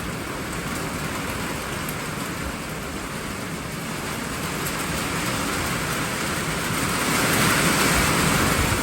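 Heavy thunderstorm rain pouring down, a steady hiss that swells louder about seven seconds in.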